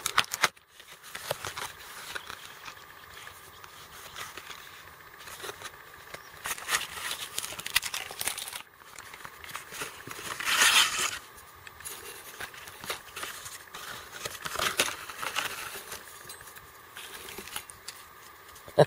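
A small cardboard box being opened and its contents handled: cardboard and plastic blister packs crinkling and rustling, with scattered light clicks and scrapes and a longer crinkling rustle about ten seconds in.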